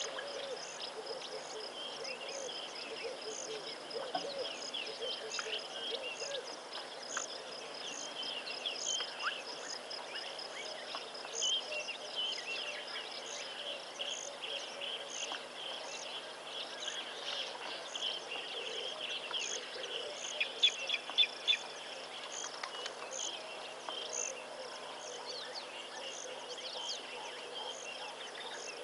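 Outdoor ambience of insects and birds: a high insect chirp repeating at an even pace over a bed of busier chirping and bird calls, with a faint steady hum underneath. A few brief louder sounds come close together about two-thirds of the way through.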